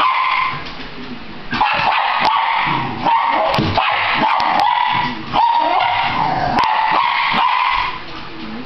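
Welsh terrier barking and yipping excitedly in rapid strings at dogs on a television, with a short lull about a second in and the noise dropping away near the end.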